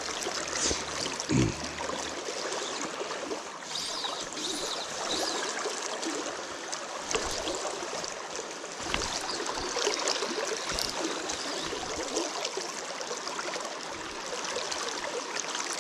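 Freestone stream flowing steadily over rocks, a constant rush of water, with a few soft low bumps.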